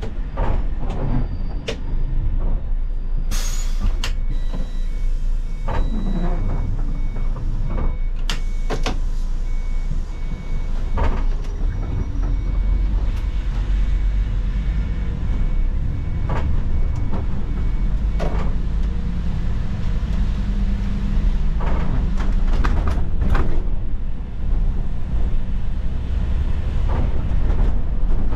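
Iveco Crossway city bus driving on a wet road, heard from the driver's seat: a steady low engine and road rumble, with frequent interior rattles and clicks. A short burst of air hiss comes about four seconds in, and a high electronic beep repeats on and off for roughly fourteen seconds after it.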